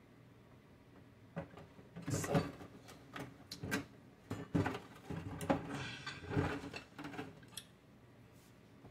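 A large cardboard box being moved and set down on a counter: an irregular run of knocks, scrapes and rustles lasting about six seconds, starting a little over a second in.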